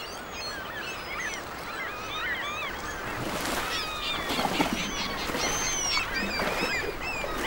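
A flock of gulls calling, many short calls overlapping and sliding up and down in pitch.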